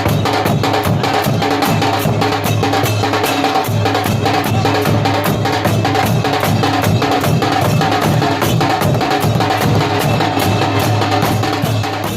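Muharram procession drums beaten in a fast, steady rhythm of rapid, evenly spaced strokes, with a deep drum underneath.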